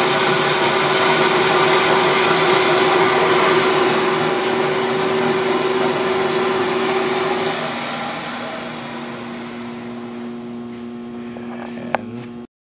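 Union Process attritor running, its agitator shaft turning in the grinding tank: a steady mechanical whir and hiss with a few steady hums. It grows quieter from about halfway on and the main hum steps lower. Near the end there is a short click, and then the sound cuts off suddenly.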